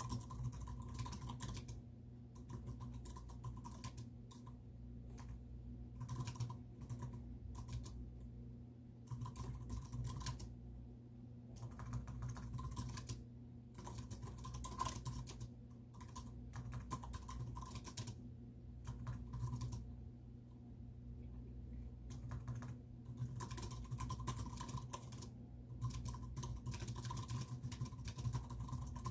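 Typing on a computer keyboard, quick runs of key clicks broken by short pauses, over a steady low hum.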